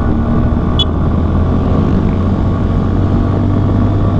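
CFMoto Papio XO-1 minibike's single-cylinder engine running at a steady cruise, with wind noise from riding. A brief high chirp comes about a second in.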